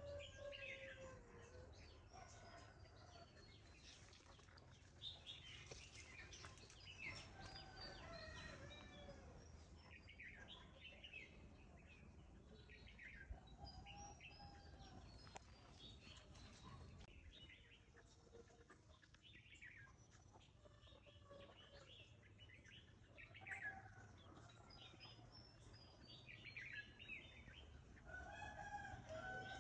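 Faint chickens clucking among many small birds chirping, a steady scatter of short calls.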